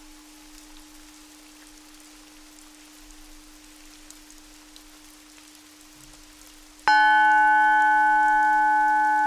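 A faint steady low tone over an even hiss, then near the end a Tibetan singing bowl is struck once and rings loudly with several clear, bell-like tones, slowly fading.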